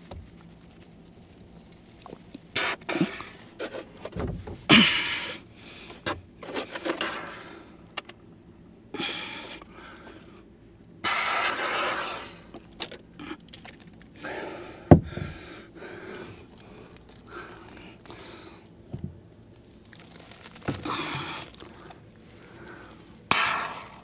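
Handling noise from sealing a foil-taped kitchen exhaust duct: irregular rustling and scraping in short bursts of noise, with two sharp knocks, about five and about fifteen seconds in.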